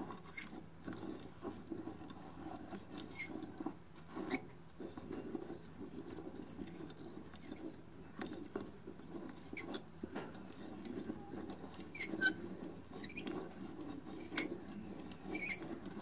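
Steel orbiting scroll of a scroll compressor's scroll set being worked around by hand inside the fixed scroll: faint, continuous metal-on-metal scraping and rubbing, with scattered light clicks.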